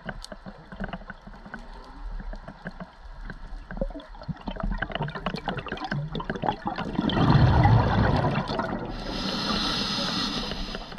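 Scuba diver's regulator heard underwater: a loud gurgling rush of exhaled bubbles about seven seconds in, followed by the hiss of an inhalation. Scattered small clicks and crackles run underneath.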